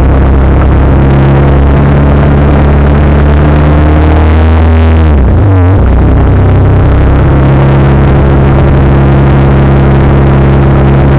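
Motorcycle engine running while riding, with the revs dropping about four to five seconds in, dipping briefly and then picking up again.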